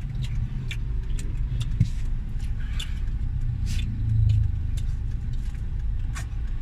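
Steady low rumble of street traffic heard from inside a car cabin, swelling briefly about four seconds in as a motorcycle passes close by. Scattered small clicks sound over it.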